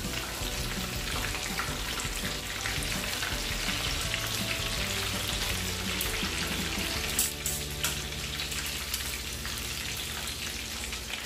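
Bread-crumbed white fish fillets deep-frying in a pan of hot oil, giving a steady sizzle, with a few sharp clicks of metal tongs about seven seconds in.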